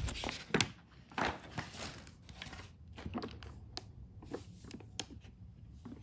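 Packaging being handled: irregular crinkling and rustling with scattered light clicks and knocks, loudest in the first second or so.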